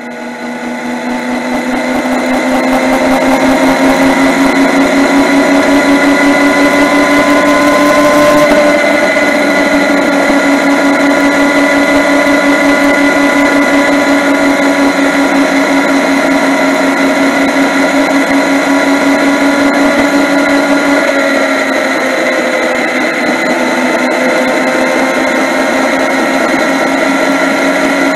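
Yamaha MT-09's three-cylinder engine running at a steady cruising pace, heard through a handlebar-mounted camera as a loud, even whine that fades in over the first couple of seconds. The pitch dips slightly about eight seconds in and again around twenty-one seconds.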